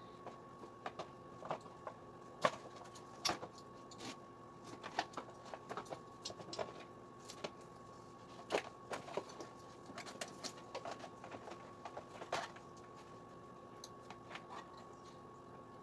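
Irregular small clicks, taps and knocks of hands and tools working on a scooter's plastic panels and wiring harness connectors, over a faint steady electrical hum.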